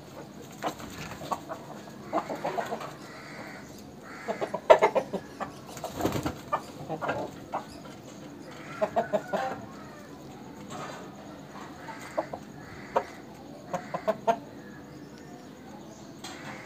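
Aseel rooster clucking in short bursts of quick clucks, repeated every second or two, the loudest about five seconds in.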